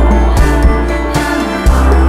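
Background music with a steady beat, cymbal hits and a sustained bass line.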